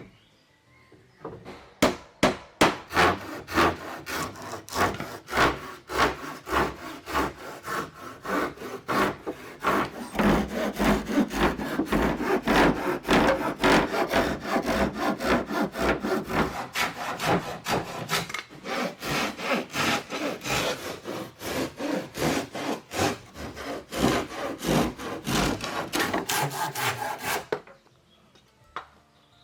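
Hand saw cutting wood with quick, steady back-and-forth strokes. It starts about a second in and stops near the end.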